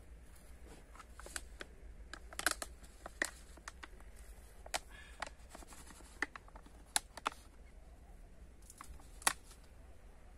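Irregular sharp clicks and taps, a dozen or so spread unevenly, from a clear plastic jar and its lid being handled and tipped, over a low steady rumble.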